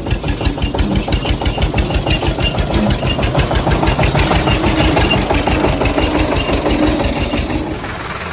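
Engine running with an even, rapid chugging beat, which stops near the end and gives way to a steadier, quieter noise.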